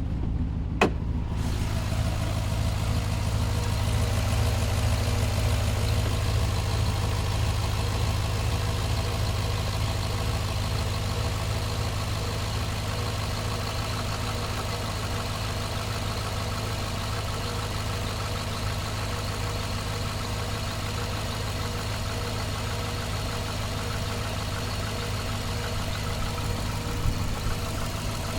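Cadillac V8 idling steadily with a misfire that has set codes for cylinders 1 and 7 plus a random misfire. A single sharp click sounds about a second in.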